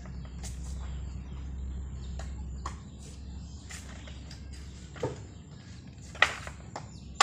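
Cut bamboo poles knocking and clacking against each other and the ground as they are picked up and moved: scattered knocks, with one sharp clack about six seconds in, over a low steady hum.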